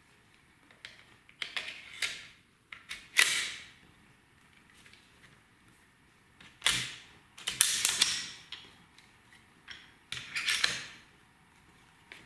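Glock 17 Gen 3 pistol slide being fitted back onto its frame and worked by hand: a series of sharp metallic clicks and short sliding scrapes, the loudest about three seconds in and again around seven to eight seconds in.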